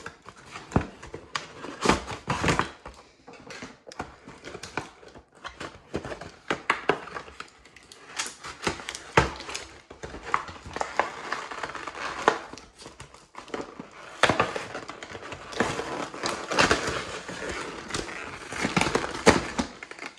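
Toy packaging being opened by hand: irregular crinkling, crackling and clicking of cardboard and plastic, with small knocks as the pieces are handled.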